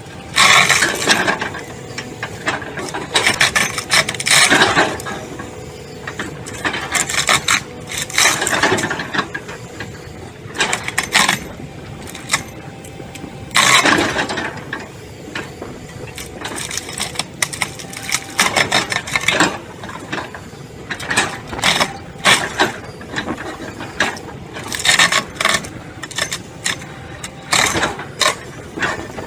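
Wood-shredding machinery working: irregular bursts of clattering and cracking over a steady mechanical running sound.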